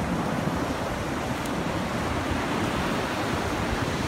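Ocean surf washing steadily on the shore, with wind rumbling on the microphone.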